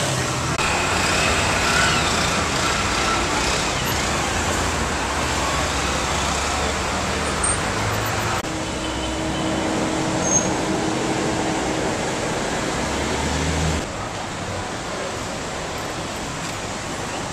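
Street traffic: a steady wash of car engine and tyre noise, with engines humming as vehicles pass and idle. The background shifts abruptly about halfway through and again near the end.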